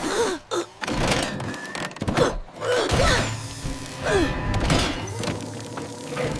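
Animated-cartoon soundtrack: background music with several heavy thuds and knocks spread through it, mixed with short gliding sound effects.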